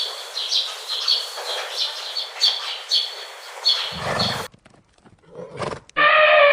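Animal sound effects in sequence: high chirping calls repeating about twice a second, a short low growl-like burst, a few clicks, then a long held animal call starting near the end.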